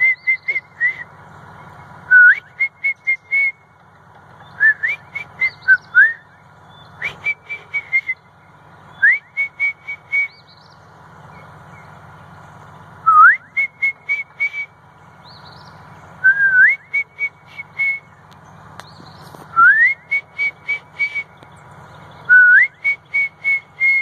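A person whistling a bird call to draw birds in. About nine loud phrases come a few seconds apart, each a quick rising whistle followed by a run of short notes on one high pitch.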